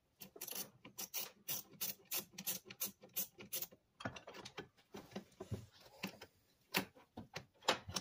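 Socket ratchet clicking in repeated strokes, about three a second at first and then more irregular, as a 10 mm bolt is driven.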